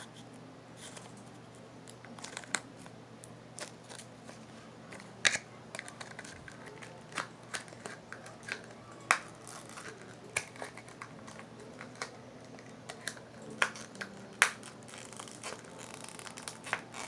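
Scattered, irregular clicks and crinkles of slime and its plastic tubs being handled, over a faint steady hum.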